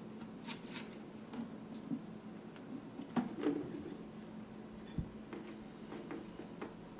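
Scattered light clicks and rattles from a wire animal cage as the animals shift on and in it, with a soft thump about five seconds in, over a faint steady hum.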